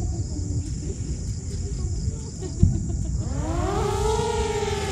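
Small quadcopter drone's motors spinning up about three seconds in: a whine that rises in pitch, then holds a steady pitch as the propellers settle at idle. A single thump comes just before it, over a steady low rumble of wind.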